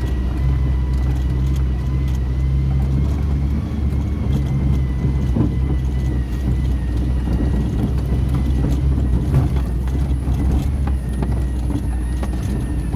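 Volvo engine running steadily, with a thin steady whine and scattered light clicks over a low drone. The engine is under diagnosis for a knocking sound.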